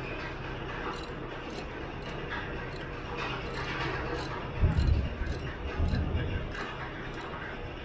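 Hand tools on engine-bay bolts: irregular metallic clicks and clinks of a wrench on bolts and brackets, with two louder dull knocks about halfway through.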